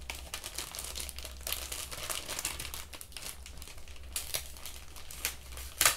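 Clear plastic wrapping crinkling and rustling as it is handled, a run of small crackles with a louder rustle near the end.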